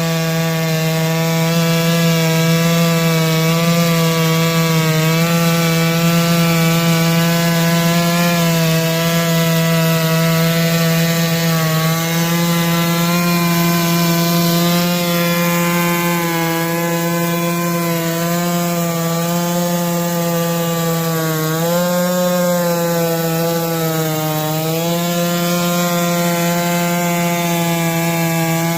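Chinese clone NS892V two-stroke chainsaw running at high revs, ripping a log lengthwise on a Norwood PM14 chainsaw mill. The engine note holds steady, then sags in pitch briefly twice in the later part as the saw bogs under the cut.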